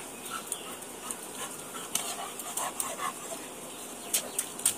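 Labrador dog giving a few short whines while being washed, with several sharp clicks near the end.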